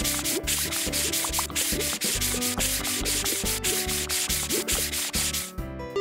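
Cartoon sponge-scrubbing sound effect: quick rhythmic rubbing strokes, about four a second, stopping shortly before the end. Backed by music with a steady beat.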